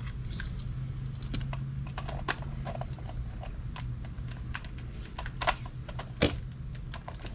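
Small irregular clicks and taps of a plastic distributor cap being handled and tried onto the distributor, with two sharper knocks near the end, over a steady low hum.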